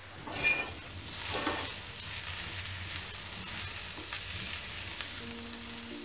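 Shredded cabbage sizzling as it fries in a pan while being stirred with a spatula, with two short scrapes in the first second and a half.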